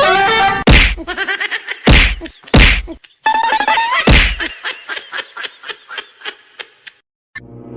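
Four loud whacks in the first four seconds, among sliding pitched sounds, followed by a quick run of taps that fade away.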